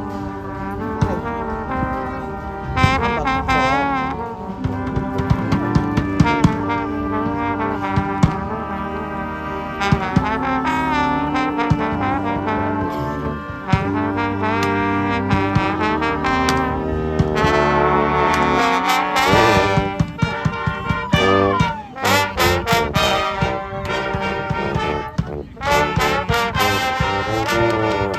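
A brass band playing a lively tune live, with trombones and trumpets carrying the melody and harmony. Sharp rhythmic hits run under the horns and come thicker in the second half.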